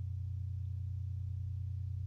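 A steady low hum that holds at one pitch without change.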